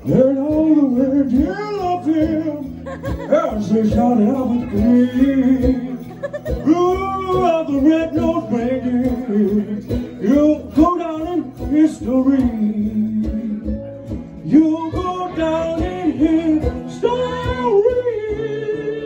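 Live acoustic band: a man singing with a wide, wavering pitch over a strummed acoustic guitar. The voice stops near the end, leaving the guitar playing.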